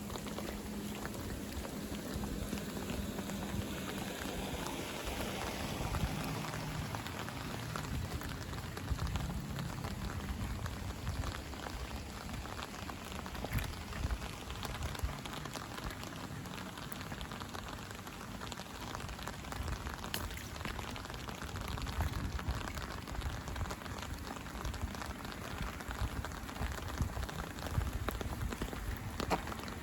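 Steady rain falling, with many individual raindrops ticking sharply close by.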